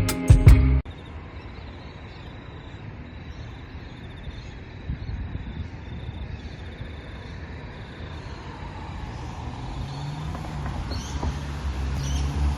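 Background music cuts off about a second in, leaving steady outdoor background noise with a low vehicle rumble that grows louder toward the end.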